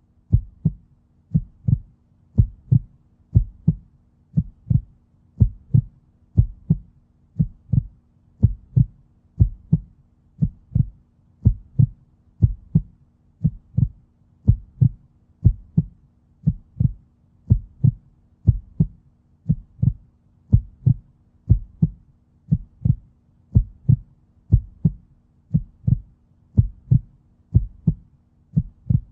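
Human heartbeat, a steady lub-dub of paired low thumps at about one and a half beats a second.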